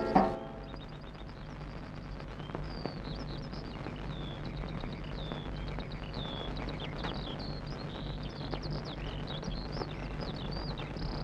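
Accordion folk music breaks off right at the start. After that, small birds chirp with many short rising and falling calls over a steady low hum.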